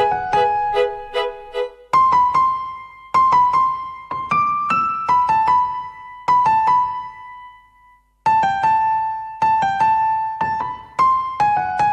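Background music: a piano playing a slow melody of single struck notes that ring and fade, with a brief pause about eight seconds in before the notes resume.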